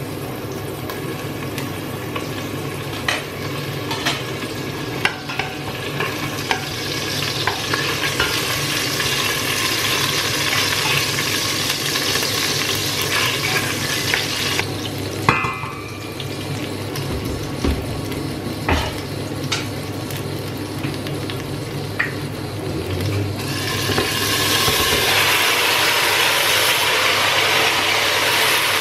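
Sliced garlic sizzling in olive oil in a stainless steel saucepan, the sizzle building over the first several seconds, with light taps of a wooden spoon stirring against the pot and one ringing knock on the pan about halfway. In the last few seconds the sizzle grows louder as drained boiled cabbage goes into the hot oil.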